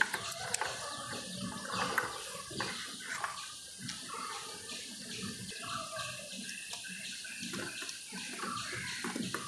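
Small irregular clicks and rustling of plastic radio parts being handled as the cleaned volume control and main board are fitted back into the case.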